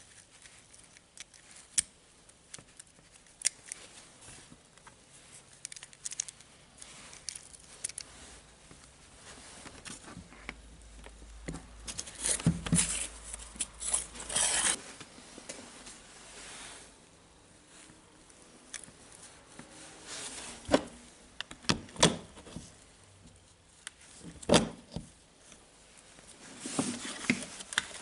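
Small metal gears and housing parts of a DeWalt cordless drill's planetary gearbox clinking and clicking as they are handled by gloved hands, with several sharper knocks as parts are set down on the work surface.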